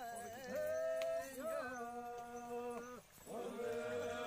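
Someone singing slowly in long held notes that step from pitch to pitch, with a short break about three seconds in.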